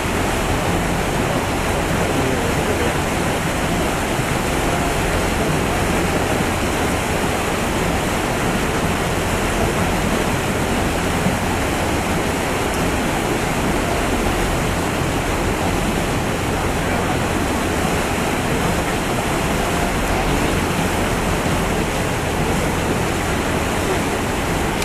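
Steady rush of canal water pouring through a sluice gate, a constant loud noise with no single splashes standing out.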